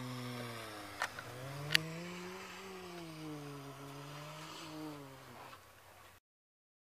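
A car engine running and revving: its pitch rises over the first two seconds or so, then falls back and fades out. Two sharp clicks come about one second and nearly two seconds in, the second one loud.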